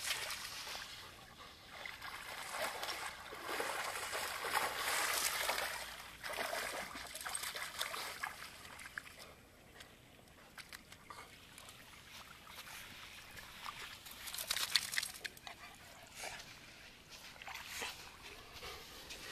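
Dog splashing about in shallow water at the water's edge, in irregular bursts that are heaviest in the first few seconds and again about three-quarters of the way through, with quieter spells between.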